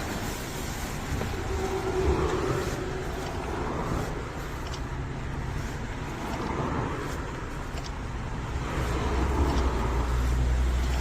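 Car engine idling steadily, a low rumble that grows a little stronger near the end.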